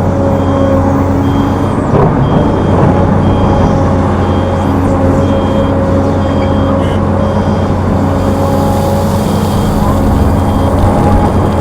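Heavy diesel machinery running steadily with a low drone, while a backup alarm gives short high beeps about every 0.7 seconds.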